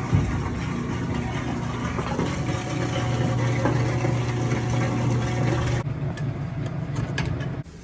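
A steady, engine-like mechanical hum with a strong low tone, dropping in level about six seconds in and cutting off abruptly near the end.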